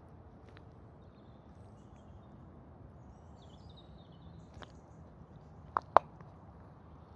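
Boots working in thick mud, with two sharp sucking pops about six seconds in as a boot pulls free.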